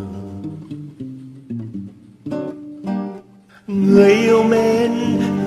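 Acoustic guitar picking a tango melody in separate plucked notes. About two-thirds of the way in it gets louder and fuller, and a man's voice comes in singing with vibrato over the guitar.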